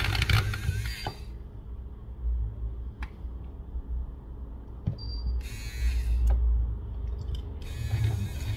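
Metal pick scraping old adhesive off a phone's glass back cover: scratchy strokes for about the first second, again briefly about five and a half seconds in, and from near the end, with a steady low hum underneath.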